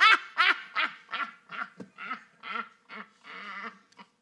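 A woman laughing hard and helplessly: a run of loud, rhythmic cackles, about two or three a second, that grow weaker toward the end.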